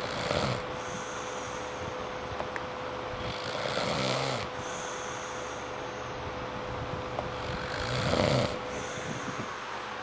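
A man snoring in his sleep: three long snores about four seconds apart, the last the loudest.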